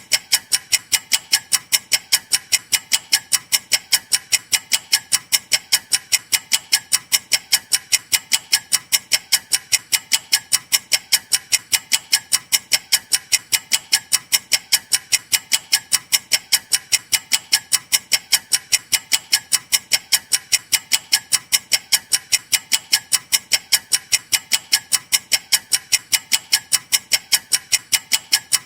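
Clock ticking fast: a steady run of sharp, evenly spaced ticks, several a second, without a break.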